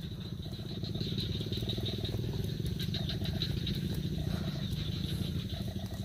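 Swamp chorus of insects and frogs: a steady high, fast-pulsing trill of insects over short repeated calls and a low rattling croak.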